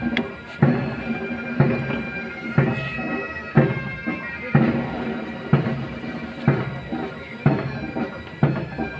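Military pipe band playing a march: bagpipes sounding a melody over their steady drone, with a bass drum striking about once a second.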